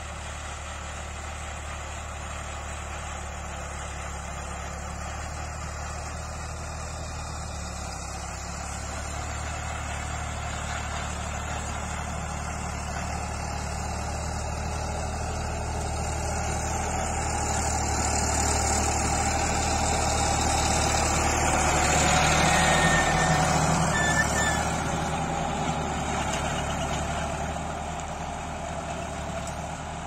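Tractor engine running as it pulls a rotary tiller (rotavator) through the soil, a steady hum that grows louder as it comes close, is loudest about three-quarters of the way through, then fades as it drives away.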